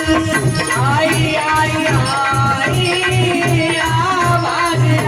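Indian folk-song accompaniment between sung lines: a gliding melody line over a steady drum beat.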